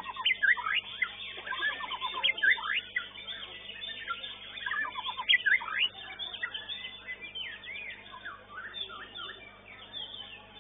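White-rumped shamas singing: a busy run of overlapping varied whistles, chirps and rapid trills. It is densest in the first half and thins out toward the end.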